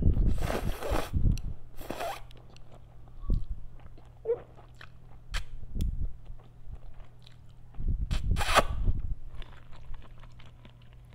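Noodles being slurped and chewed close to the microphone: loud slurps at the start and again about eight seconds in, with soft chewing and small clicks in between.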